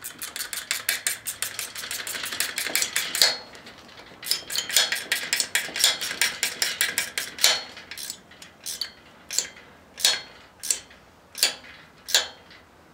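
Small metal wrench clicking on the carburetor's clamp bolt as it is tightened onto the intake neck: two fast runs of rapid, even clicks with a short pause between, then slower single clicks every half second or so.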